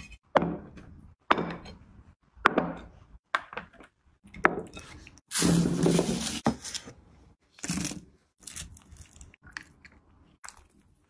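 Short bursts of handling noise, with knocks and scrapes, separated by near silence. About halfway there is a loud crinkling rustle of aluminium foil, lasting about a second.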